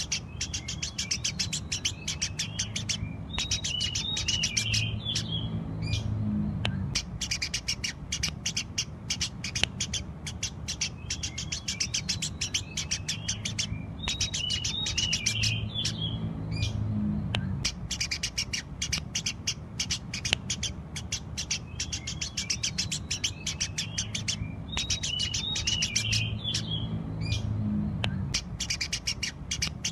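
Eurasian tree sparrows chirping continuously in rapid strings of sharp chirps, with a busier twittering phrase that comes back about every 11 seconds, as if the recording is looped. A steady low hum runs underneath.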